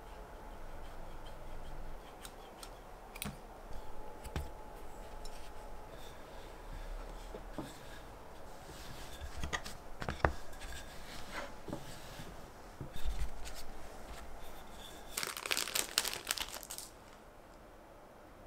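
White sandwich bread being worked by hand on a wooden board: the crusts are snipped off with kitchen scissors and the crustless slice is pressed flat. Scattered soft clicks and rubbing, then a dense crinkly rustle for about two seconds near the end.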